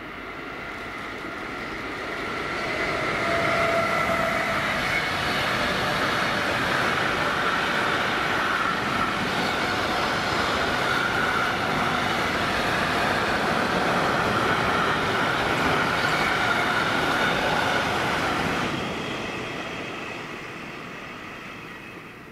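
Long electric-hauled intermodal freight train passing: the rumble of wheels on rail builds over the first few seconds and holds steady while the wagons roll by. It fades away after about nineteen seconds as the end of the train passes.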